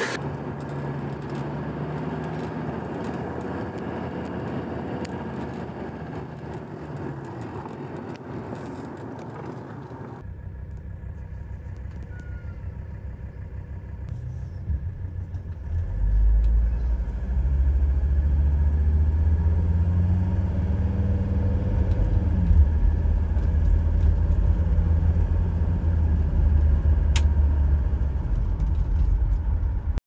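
Mercedes-Benz 300D's five-cylinder diesel engine running. About ten seconds in the sound changes to a low rumble heard from inside the cabin, which gets louder about sixteen seconds in as the car drives.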